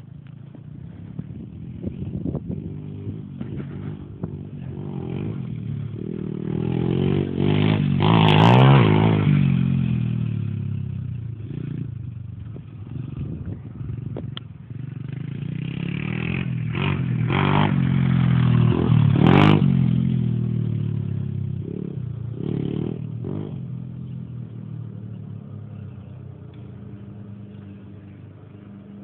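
A small off-road engine revving as it passes twice, growing louder to a peak about eight seconds in, fading, then building to a second peak near twenty seconds before fading away. A short sharp click comes at each loudest point.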